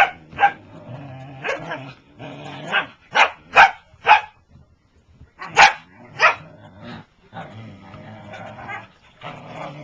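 Whippets barking and yipping in play: about ten short sharp barks, bunched in quick runs, with longer rough vocal sounds between them.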